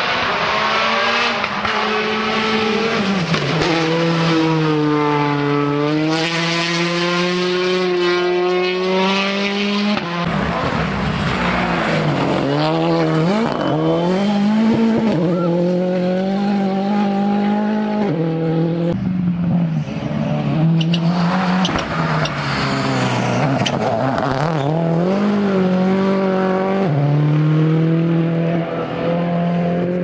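Rally cars driven flat out on a gravel stage: engines revving high, the note climbing through the gears and dropping sharply at shifts and lift-offs several times over, with gravel and tyre noise under it.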